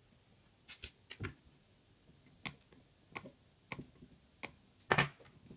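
A series of sharp clicks and small metal knocks, about eight, spaced irregularly, with the loudest near the end, as the assembled flasher-kit circuit board is handled in the metal alligator clips of a helping-hands stand.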